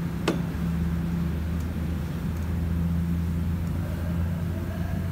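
Steady low machine hum, with one sharp click about a third of a second in.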